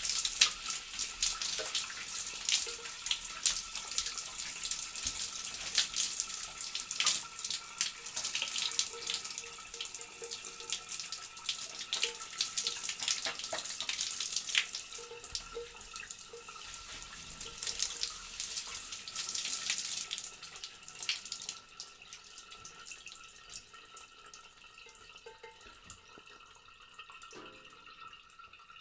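A shower running, water spraying and splashing steadily. About two-thirds of the way through the spray thins to trickling and scattered drips, which fade away near the end.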